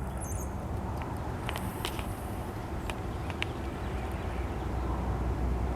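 Gusty wind buffeting the microphone: a steady low rumble, with a few faint scattered clicks.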